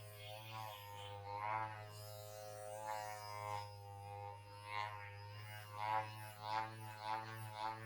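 Background music: a steady low drone under a wavering, pitched melody line, with a pulsing rhythm of about two beats a second coming in about five seconds in.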